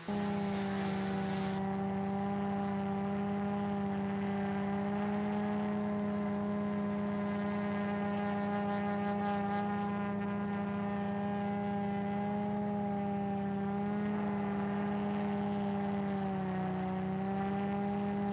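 Multirotor drone's electric motors and propellers humming steadily in flight, heard through its onboard camera, holding one pitch with a slight dip near the end.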